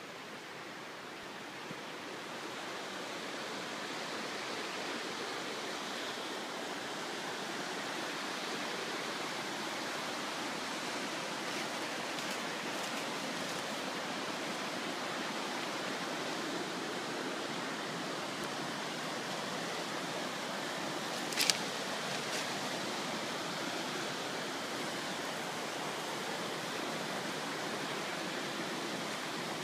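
Rushing river rapids: a steady wash of whitewater that grows louder over the first several seconds, then holds steady. One sharp click about two-thirds of the way through.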